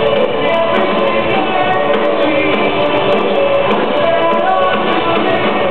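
Rock band playing live and loud, with electric guitars, drums and a singer.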